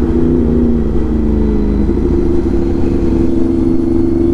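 Kawasaki Z900's inline-four engine running on the road. Its pitch falls over the first couple of seconds as the revs drop, then holds steady.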